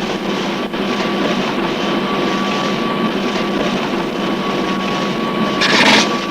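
Heavy machinery running steadily with a constant whine. A louder, short hissing burst comes about five and a half seconds in.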